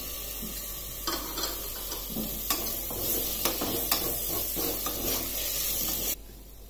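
Chopped tomatoes sizzling in hot oil and ghee with fried onions in a stainless steel pressure cooker, while a spoon stirs them with repeated scrapes and knocks against the pot. The sizzle drops away suddenly about six seconds in.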